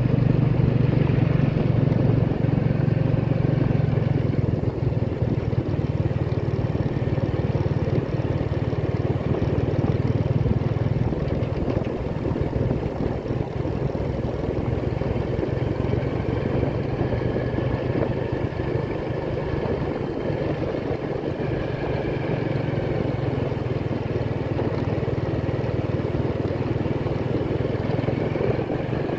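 Motorcycle engine running steadily at cruising speed while riding, with a low, even drone. It becomes a little quieter after about ten seconds.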